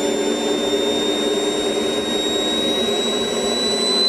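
Small turbine engine of a radio-controlled model jet running: a steady rushing roar under a high whine that creeps slowly upward in pitch.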